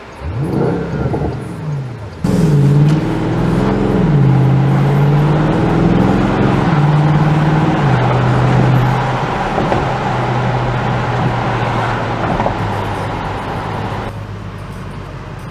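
Bentley Continental GT V8 S's 4.0-litre twin-turbo V8 through its sports exhaust, revving briefly, then after an abrupt cut accelerating hard. Its pitch climbs and drops back several times as it shifts up, then settles into a steady lower drone that fades near the end.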